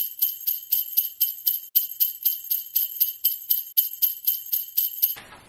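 Sleigh bells jingling in a steady rhythm, about four shakes a second, as an edited-in sound effect that replaces the room sound. It starts abruptly, has a brief gap early on, and cuts off sharply near the end.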